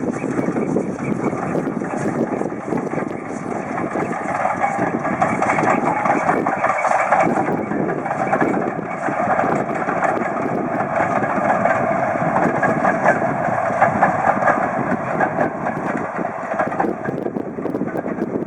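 Steam-hauled train running past, a loud steady rumble that swells through the middle.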